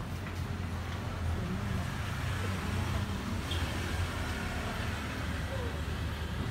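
Steady low rumble of background noise like road traffic, with indistinct voices faintly under it.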